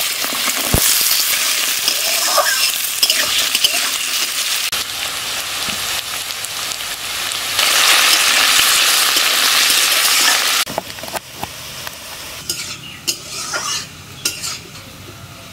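Diced potatoes frying in hot mustard oil with panch phoron in a kadai, sizzling loudly; the sizzle swells just before ten seconds in, then drops away sharply to a quieter fry with scattered clicks and scrapes of the potatoes being stirred.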